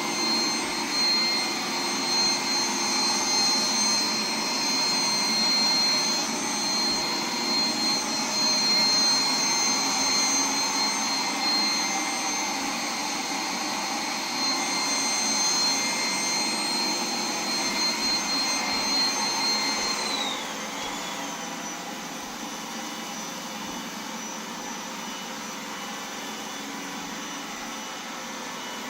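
Roomba 980 robot vacuum running, its vacuum fan giving a steady high whine over the motor noise. About two-thirds of the way through, the whine slides down in pitch and the whole sound gets quieter as the fan slows to a lower speed.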